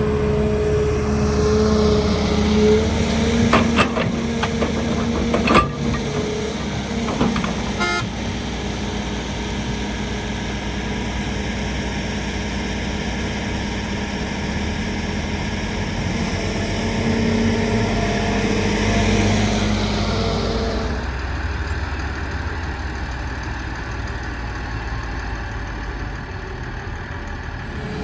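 Heavy excavator diesel engine running steadily under working load, with a few sharp knocks about four to six seconds in. The sound changes abruptly about 21 seconds in, losing much of its higher hiss.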